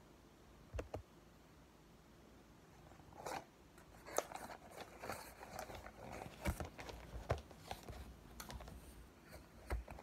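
Cardboard box of cornstarch being handled and dug into by hand: scratching, crinkling and scattered sharp clicks that start about three seconds in, after a single knock near the start.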